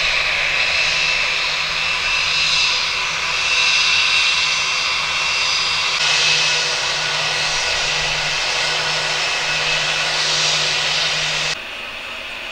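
Airbus A320's IAE V2500 jet engines turning over as the airliner taxis: a steady jet whine with a high tone over a rushing noise. Shortly before the end it cuts off abruptly to a quieter steady hum.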